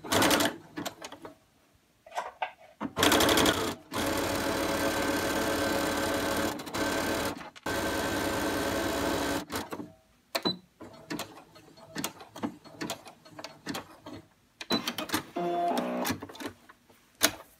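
Baby Lock sewing machine stitching a wide zigzag along the cut edge of a terry-cloth towel. It runs in short bursts at first, then steadily for about five seconds before stopping, followed by light clicks of the fabric being handled.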